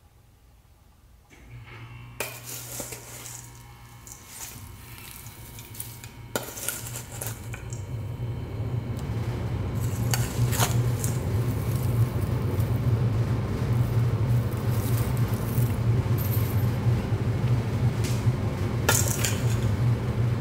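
A Bateerun countertop blender's motor starts about a second in and runs with a steady hum, its jar clattering and rattling with broken laptop circuit-board pieces as it pulverizes them. It grows louder over the next several seconds, then runs steadily.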